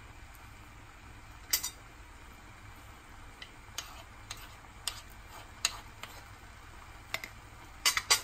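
A metal spoon and wooden spatula knocking against a nonstick frying pan while tossing cooked rice noodles: a scattering of short sharp clicks, with a quick pair near the end, over a faint low hum.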